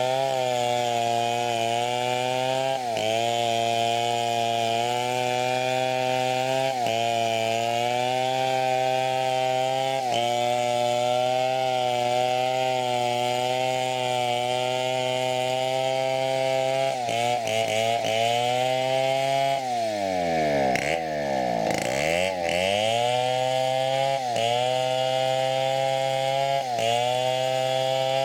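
Two-stroke chainsaw running at high revs while cutting teak wood, its pitch dipping briefly every few seconds as it loads in the cut. A little past two-thirds of the way through, the revs drop right down and then climb back up to full speed.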